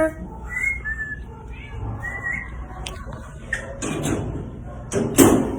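A few short, soft high whistles, coaxing sounds to a hiding cat, in the first half. Near the end come two short noisy bursts, the second the loudest.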